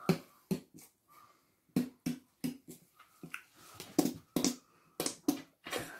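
Plastic squeeze bottle of garlic mayonnaise being squeezed onto a wrap, sputtering in a long irregular string of short squelching pops.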